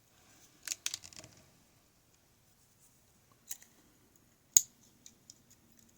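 Scattered small clicks and scrapes of tools against the pins and springs of a disassembled pin-tumbler lock, while a stuck spring is worked at. A cluster of clicks comes near the start, and a single sharp click about four and a half seconds in is the loudest.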